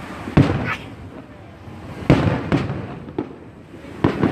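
Aerial fireworks shells bursting: loud booms about half a second in, about two seconds in and just before the end, with a smaller bang between, each one trailing off in a rumbling echo.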